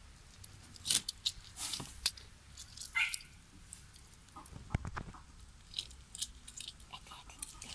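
Faint kitchen handling noises: scattered clicks and crackles as a lime is squeezed by hand over a plastic bowl of fruit salad, with a sharp knock about five seconds in.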